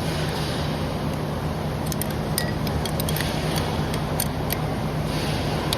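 A few scattered light metallic clicks and clinks of a wrench working on two nuts jammed together on a stud. Under them is a steady rushing background noise with a low hum.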